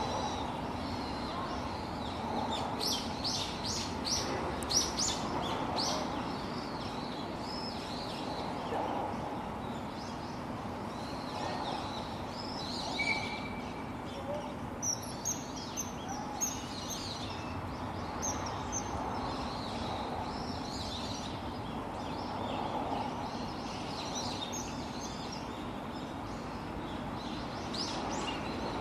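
Common kingfisher giving short, shrill, high-pitched calls, a quick run of several together a few seconds in and scattered calls later, over a steady background hiss.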